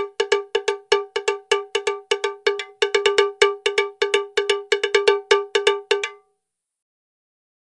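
Metal struck over and over, about three to four strikes a second, each ringing at the same bell-like pitch; the strikes stop abruptly about six seconds in.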